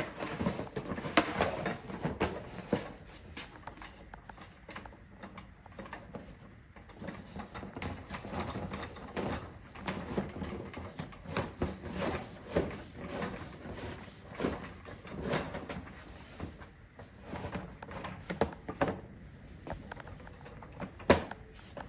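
Folded backing boards being handled and slid into the display stand: irregular clicks, knocks and scraping, with one sharp knock near the end.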